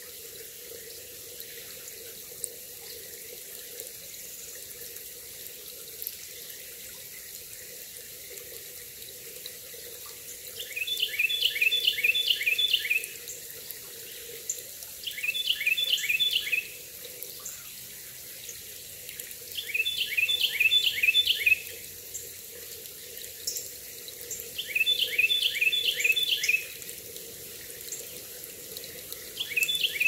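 Shallow stream running over a gravel bed, a steady rush of water. From about a third of the way in, a songbird repeatedly sings a short phrase of quick down-slurred whistled notes, about every five seconds.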